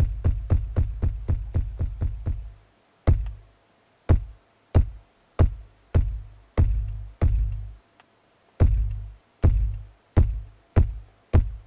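Drum samples played in Native Instruments Maschine through its Transient Master effect. A fast, even run of sharp hits, about four a second, each with a deep booming low end, breaks off about two and a half seconds in. Scattered single and paired hits follow.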